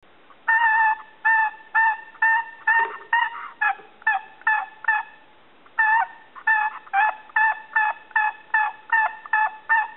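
Homemade wooden turkey box call played by hand, the paddle stroked across the box's edge to make turkey-hen yelps, about two a second. There are two runs with a short pause about halfway.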